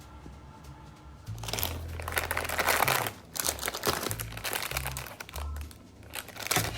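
Packaging being crinkled and handled, a dense crackle that starts about a second in, runs for about three seconds and comes back briefly near the end, over background music with a steady bass line.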